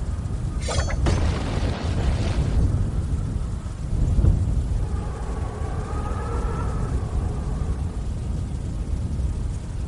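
Strong gusting wind with a heavy, deep rumble of wind buffeting the microphone; a gust about five seconds in brings a faint, wavering howl that fades after a couple of seconds.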